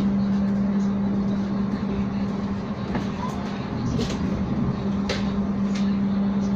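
Inside an executive-class passenger car of a train on the move: steady running noise under a constant low hum, with a few sharp clicks from the wheels on the track about four, five and six seconds in.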